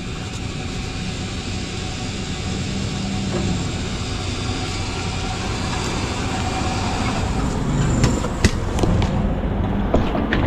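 A motor vehicle engine running steadily, with a few sharp clicks near the end.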